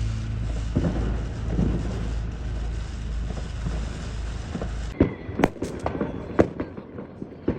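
Fireworks and firecrackers going off. At first a dense crackle sits over a steady low rumble. About five seconds in the sound changes abruptly to a string of separate sharp bangs, several a second.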